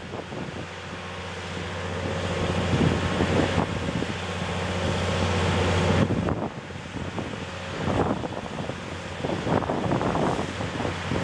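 A low, steady engine or machinery hum in a harbour, with wind buffeting the microphone. The hum grows louder over the first six seconds, then drops away abruptly.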